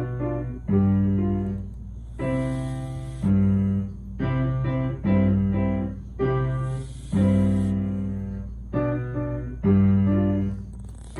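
Slow piano music, chords struck about once a second and left to ring out. A soft hissing snore from someone asleep comes and goes roughly every four seconds under it.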